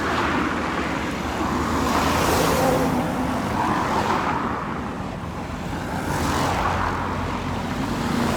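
Road traffic: steady traffic noise with vehicles passing, swelling about two seconds in and again about six seconds in.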